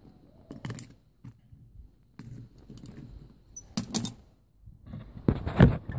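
Cast aluminium castings knocked and set down on paving stones with pliers: a few light, separate metallic clinks and scrapes, then a louder, duller clatter near the end.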